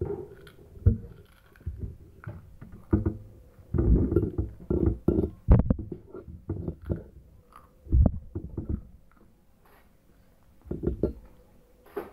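Close, irregular dull thumps and rustles of someone eating fried rice by hand at a table, with a quieter pause near the end.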